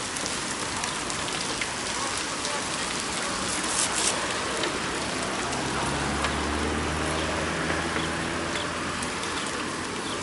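Steady hiss of rain and bicycle tyres on wet asphalt as a column of cyclists rides past, with a few small ticks. A low hum joins it from about halfway in and fades a second before the end.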